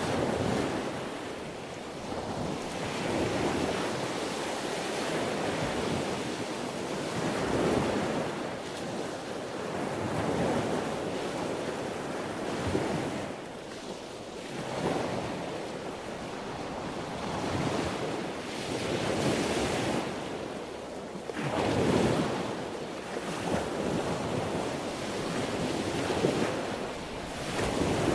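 Sea waves breaking and washing in: a continuous rush of surf that swells and ebbs every three to four seconds.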